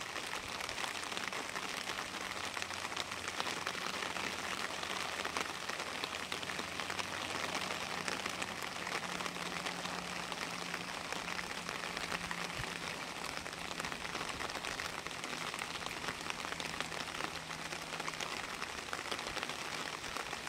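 Steady rain falling, an even hiss of drops, with a faint low hum underneath.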